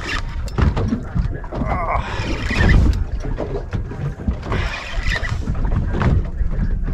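Wind buffeting the microphone and water slapping against a small boat's hull, with scattered knocks and clicks from rod-and-reel handling while a heavy fish is played.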